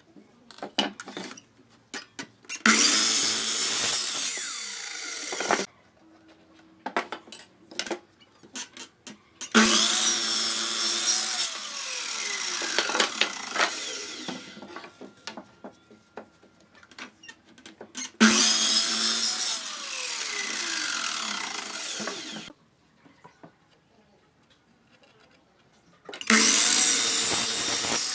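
Ozito sliding compound mitre saw cutting wooden boards four times. Each time the motor starts suddenly, cuts through the board, and winds down with a falling whine. Between cuts come short knocks and clatter of boards being handled on the bench.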